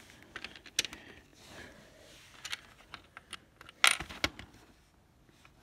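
Small plastic Lego pieces clicking and clattering as they are handled and fitted together: scattered sharp clicks, the loudest a little under four seconds in.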